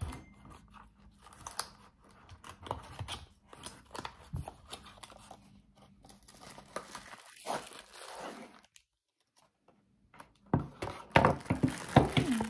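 Packaging being opened by hand: scattered rustling, tearing and crinkling, which drop out for a moment about nine seconds in and come back louder near the end.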